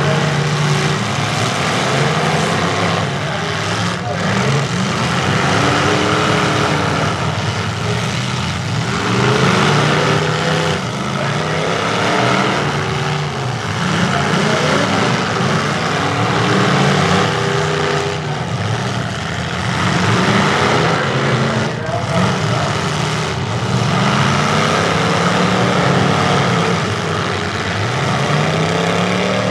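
Several demolition derby pickup trucks' engines running hard and revving up and down over and over, as the trucks shove into each other.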